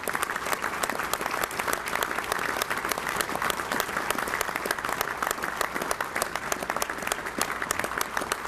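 A roomful of people applauding steadily, a standing ovation of many hands clapping.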